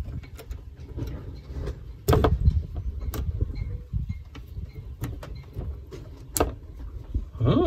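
Scattered sharp clicks from the rocker switches and fuse-holder caps of a boat's 12-volt DC switch panel being pressed and handled, over a low rumble.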